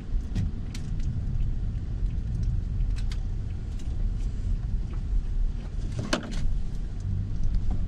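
Low, steady rumble of a vehicle driving on the road, with scattered light clicks and a sharper knock about six seconds in.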